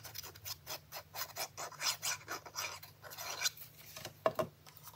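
Cardstock being handled and rubbed: irregular scratchy, rasping strokes several times a second, with a sharper tap near the end.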